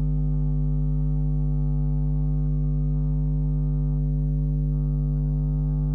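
Steady electrical mains hum in the recording: a constant low buzz with a ladder of higher tones above it, unchanging in level.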